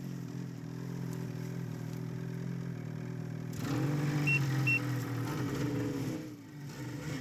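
Snowmobile engine idling steadily, picking up a little and wavering in pitch partway through. Two short high beeps sound about four seconds in.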